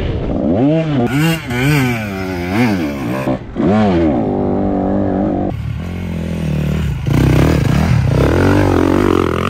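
Dirt bike engines revving hard and falling back again and again, the pitch swinging up and down several times. About halfway through the sound cuts abruptly to a second bike revving.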